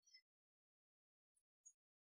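Near silence, with three very faint short clicks: one at the start and two close together near the end.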